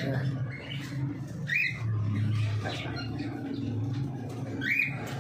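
Lovebirds giving a few short, shrill squawking chirps, each sweeping upward, over a steady low hum.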